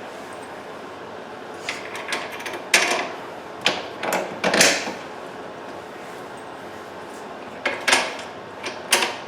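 Scattered short clicks and clanks of metal parts being handled and fitted during snow blower assembly, as bolts are set into the handle mounts. They come in irregular groups, loudest a little under 3 s in and again around 4.5 s.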